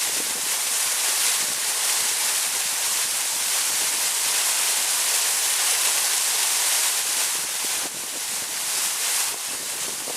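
Torrential waterfall pounding down close to the microphone: a loud, steady hiss of falling water, dipping slightly near the end.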